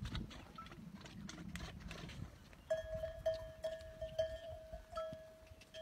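A herd of camels moving and browsing among desert shrubs, with scattered clicks and rustles. About halfway through, a steady high tone with slight regular pulses begins and holds.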